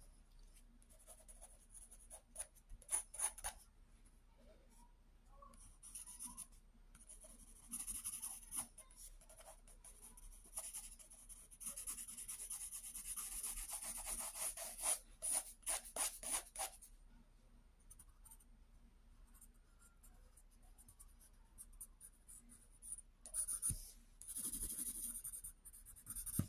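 Graphite pencil scratching across sketch paper in bursts of quick strokes, with a longer run of steady shading lasting about five seconds around the middle.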